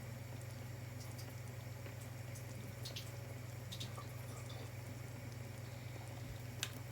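Faint drips and a few light ticks as the liquid is drained from a tin of sweetcorn, over a steady low hum.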